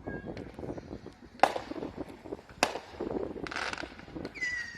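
Fireworks going off: two sharp bangs a little over a second apart, then a short crackle, and near the end a high, steady whistle begins.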